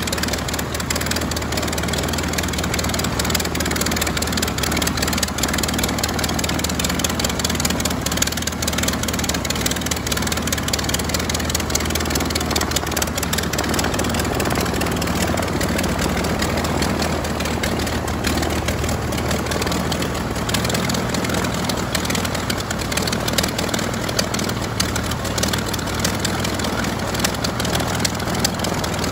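Curtiss OX-5 water-cooled V8 aircraft engine running steadily and turning the propeller of a 1928 Command-Aire biplane.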